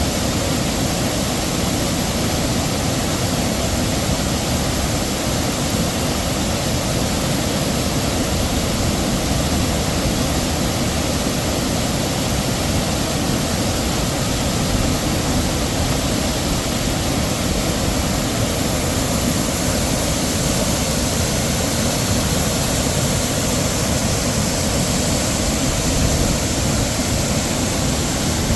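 Heavy waterfall pouring: a dense, unbroken rush of falling water, steady in loudness throughout.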